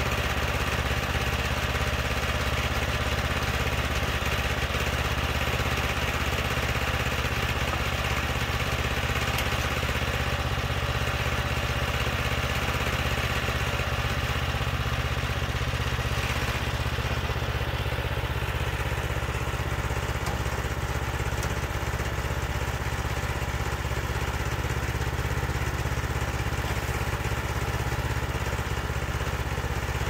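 The sawmill's 15.8 Predator single-cylinder gasoline engine idling steadily, with no change in speed.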